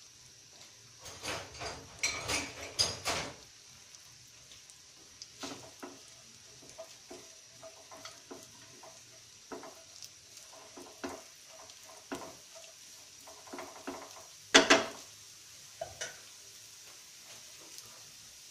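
Vegetables being stir-fried in oil in a non-stick frying pan: a utensil scraping and knocking against the pan over and over, loudest in a run of strokes about a second in and in one sharp knock near the end. Under it, a faint steady sizzle of breaded chicken steaks shallow-frying in oil in a second pan.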